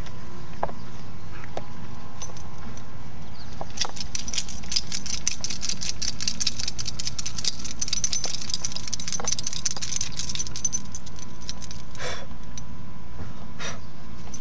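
A dog's collar jingling in a fast run of metallic clinks as the dog scratches itself with a hind leg. The jingling starts about four seconds in and stops about eleven seconds in.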